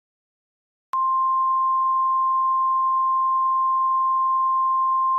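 A single steady, pure alert tone near 1 kHz, starting abruptly about a second in and holding without change in pitch or level. It is an emergency-alert attention tone, the signal that an alert message follows.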